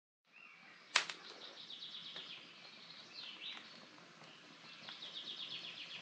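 Campfire of dry sticks burning with a low hiss and scattered crackles, one sharp pop about a second in. A songbird sings two rapid runs of high repeated notes.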